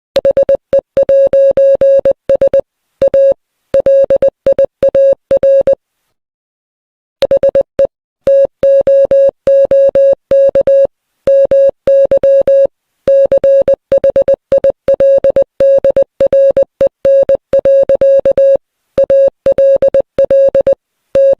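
Morse code sent as rapid on-off beeps of a single mid-pitched tone, in short dots and longer dashes. The keying stops for about a second and a half near six seconds in, then carries on.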